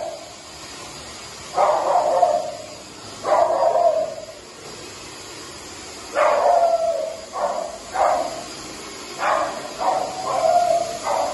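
Small poodle barking repeatedly, in bouts of one to several barks with pauses of a second or two between.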